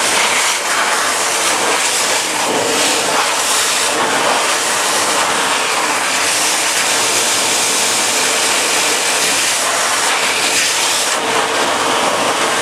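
Electric hand dryer running at full blow: a steady, loud rush of air with a strong hiss.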